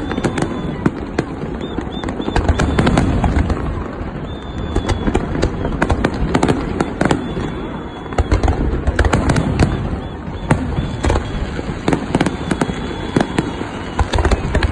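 Large aerial fireworks display: shells bursting in quick, irregular succession as sharp bangs and crackles over a continuous low rumble.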